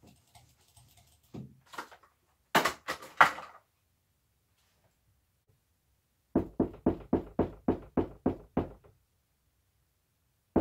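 Rapid knocking on a closed wooden door: about eleven quick, even knocks, some four to five a second, that start about six seconds in and last a little over two seconds. A short cluster of sharper, louder noises comes first, about two and a half seconds in.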